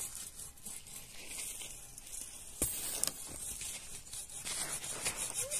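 Rustling and scraping of dry sticks and branches being handled, with small scattered clicks and one sharper click about two and a half seconds in.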